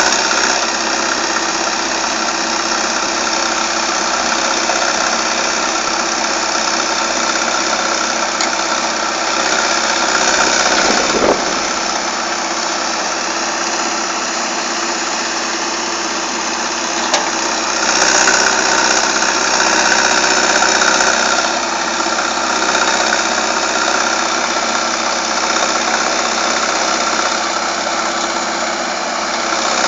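Excavator's diesel engine running steadily, growing louder for a few seconds twice, with a short thump about a third of the way in.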